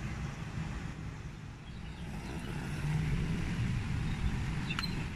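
Steady outdoor city ambience of distant traffic: a low rumble with a hiss over it, a little louder about halfway through.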